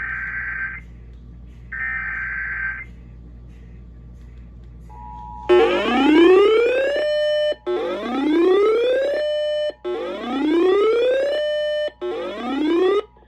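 Emergency Alert System tones broadcast over FM radio: two short buzzy data bursts of the SAME header, then, about five seconds in, the steady two-tone attention signal starts. Over it a rising siren-like whoop repeats four times, about every two seconds.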